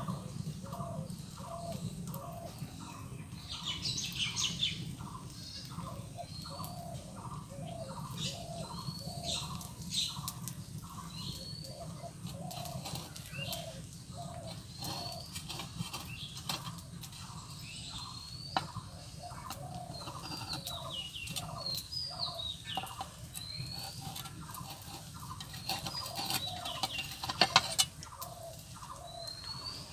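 Chickens clucking in a steady run, about two clucks a second, with small birds chirping high above, over a low steady rumble. Near the end come a few sharp clacks of a metal blade against the clay pitha mould as the cakes are turned.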